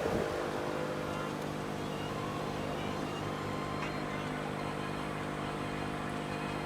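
All Top portable air compressor running steadily as it inflates a truck tire, a constant hum that stays at one pitch.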